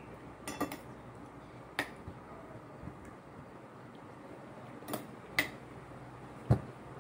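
Spoon and fork clinking and scraping against a plate while eating: a handful of scattered clicks, with a duller, louder thump near the end, over a faint steady low hum.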